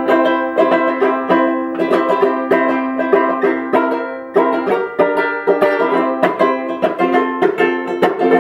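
Duke 10 banjo ukulele with a 10-inch birch drum, just set up and tuned, strummed in a quick, even rhythm through a chord progression. The chord changes every second or two.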